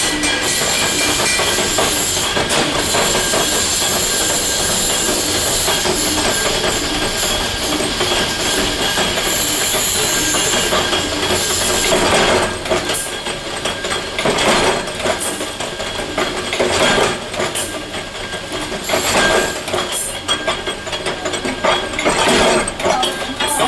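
Heavy industrial machinery running with a steady metallic grinding and high squealing, giving way about halfway through to irregular sharp metal clanks and knocks.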